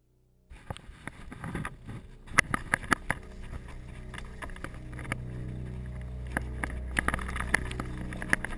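Mountain bike riding fast down a dirt forest trail: a steady rumble of tyres and wind on the microphone, with frequent sharp clicks and knocks as the bike rattles over bumps. It starts about half a second in.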